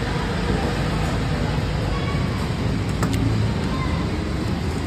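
Petrol station fuel dispenser running, pumping petrol through the nozzle into a motorcycle's fuel tank: a steady hum and rush, with one light click about three seconds in.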